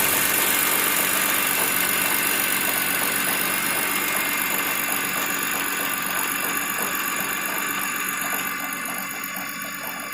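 BMW S54 3.2-litre straight-six idling steadily while still cold, getting gradually quieter toward the end. The engine carries a random, plastic-like rattle that persists despite a VANOS anti-rattle kit and a new upper timing-chain guide, and whose cause the owner has not found.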